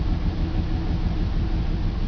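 BMW 325's M54 2.5-litre straight-six engine running steadily after a cold start, a condition in which the owner reports misfires in cylinders 3 and 5.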